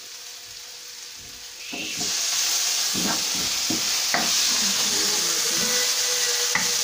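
Chopped tomatoes added to hot oil and spice paste in a frying pan: loud sizzling starts about two seconds in, while a wooden spatula stirs and knocks against the pan a few times.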